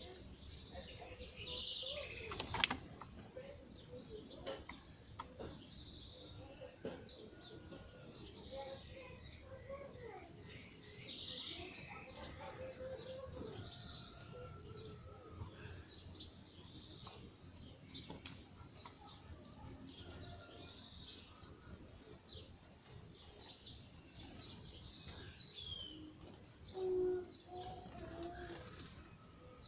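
Small birds chirping in many short, high-pitched chips, in quick flurries around the middle and again near the end. A sharp knock about two seconds in is the loudest sound.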